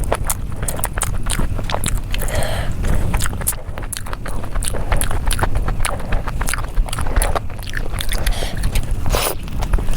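Close-miked mukbang eating: biting and chewing with many wet mouth clicks and smacks, and a couple of short louder crunchy bursts, over a steady low rumble.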